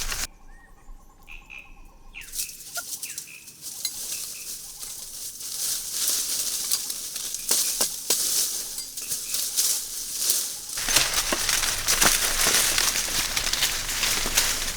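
Rustling and scraping, with scattered sharp knocks, and a few short bird chirps near the start.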